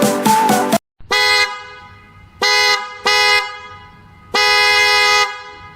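K80B electric trumpet car horn sounding in four blasts: three short toots, then a longer blast of about a second, each fading out slowly after release.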